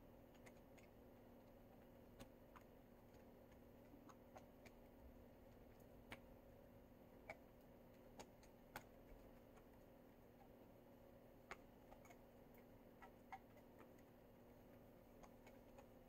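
Near silence: a faint steady hum with scattered, irregularly spaced faint clicks and ticks.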